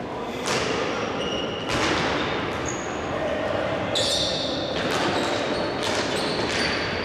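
Indoor hockey play in a sports hall: several sharp knocks a second or two apart from sticks striking the ball and the ball hitting the boards, echoing in the hall, with short high squeaks of shoes on the court floor.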